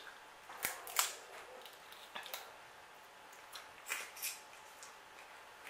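Snow crab leg shells cracking and snapping as they are broken open by hand: a handful of short, sharp cracks spread through an otherwise quiet stretch.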